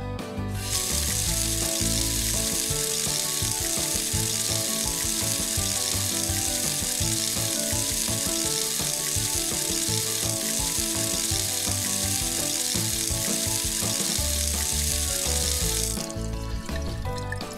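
Water running from a chrome lever tap into a stone washbasin: a steady hiss that starts under a second in and cuts off suddenly near the end as the tap is shut. Children's background music plays underneath.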